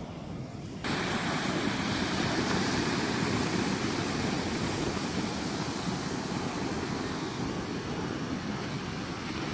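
Steady rushing noise of wind and ocean surf at the shore, starting abruptly about a second in.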